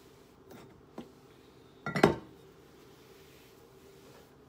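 Quiet room tone broken by a light tap about a second in and a louder clunk about two seconds in: hard items knocked and set down on a kitchen countertop while it is being wiped with a cloth.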